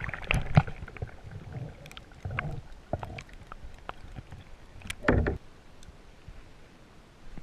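Knocks and rustling of things being handled in a kayak, with scattered clicks early on and one louder thump about five seconds in.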